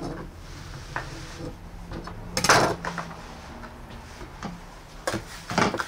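A few short knocks and clatters of kitchen things being handled, loudest about two and a half seconds in and again near the end.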